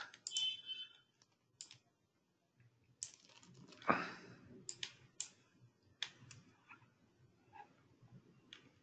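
Faint, scattered computer keyboard keystrokes and mouse clicks, a few isolated taps spread unevenly, with a louder short rush of noise about four seconds in.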